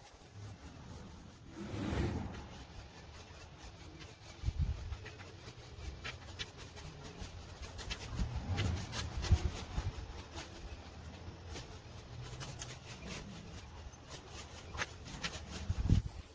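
Leaf rake scraping over grass and dry leaves, played back sped up, so the strokes run together into rapid scratchy clicks over low rumbling swells.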